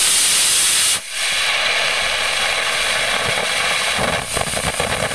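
Estes black-powder model rocket motor firing nozzle-up on a static thrust stand: a loud rushing hiss that drops about a second in as the main thrust burns out, then a softer, crackling hiss as the delay grain burns, throwing smoke and sparks.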